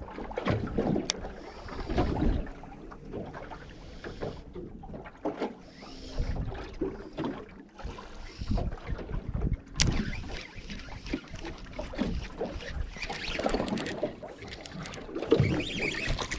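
Wind gusting over the microphone and small waves slapping against a small aluminium boat's hull, an uneven low rumble, with a couple of sharp clicks about a second in and again near the middle.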